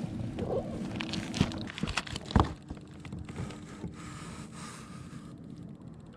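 Handling noise from a landing net holding a freshly caught lake whitefish in a kayak: scattered knocks and rustling, the loudest knock about two and a half seconds in, with a faint steady hum underneath.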